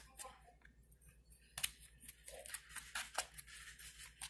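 Plastic fork stirring and scraping through dry seasoned flour in a bowl: a run of irregular, scratchy strokes as the flour is tossed.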